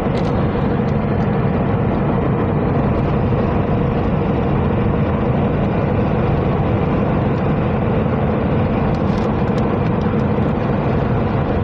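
Steady road and engine noise of a moving car, heard from inside it.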